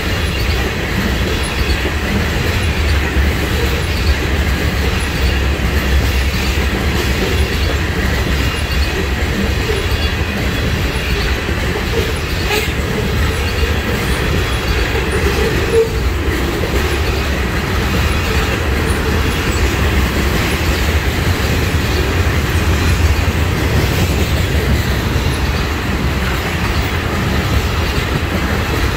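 Freight train of oil tank cars rolling steadily past: a continuous low rumble of steel wheels on the rails.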